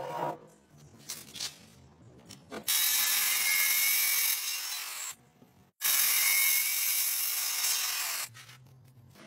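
Festool HK 85 circular saw cutting along a guide rail through a thick wooden slab. It runs in two loud stretches of about two and a half seconds each, with a sudden short break between them about five seconds in. Light clicks and knocks come before the cut starts.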